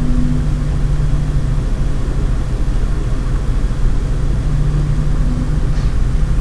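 Stock case fans of a Lian Li 217 INF PC case running at about 20% speed with a low droning resonance hum that swells and fades in slow waves. The owner blames this ghostly noise on the Lian Li fan hub modulating the motherboard's PWM signal.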